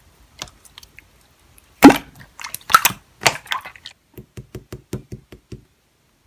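Slime being squeezed and poked by hand, making sticky clicks and pops. There is a louder crackling burst about two seconds in, then a quick run of short pops.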